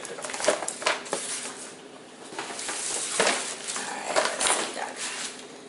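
Tissue paper and a paper gift bag rustling and crinkling as hands dig through them, with scattered sharp crackles.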